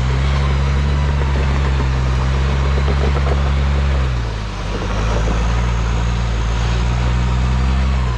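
Toyota LandCruiser 80 Series engine labouring steadily at low speed as the 4WD crawls up a steep, rutted dirt slope. The engine note eases briefly about halfway through, then comes back on.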